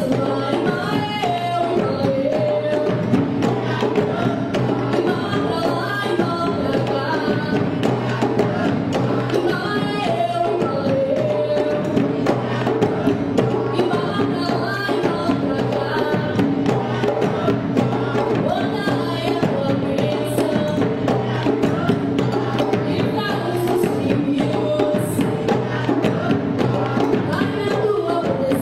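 Music with percussion and a melodic line.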